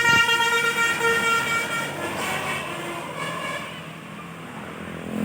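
A tour bus's multi-tone telolet basuri horn plays its tune of several steady tones, which dies away about a second in. After it come a short horn note or two and the rumble of the bus and traffic.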